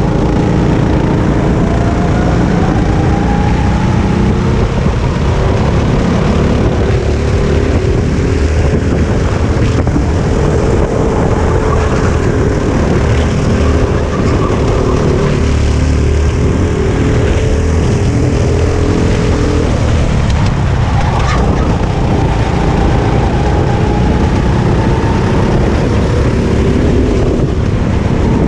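Onboard sound of a Sodi RT8 rental kart's four-stroke engine running hard, its pitch climbing slowly along the straights and dropping off when the throttle is lifted for a corner about twenty seconds in.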